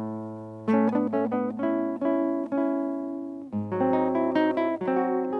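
Acoustic guitar music: plucked notes and strummed chords, each ringing out and fading before the next.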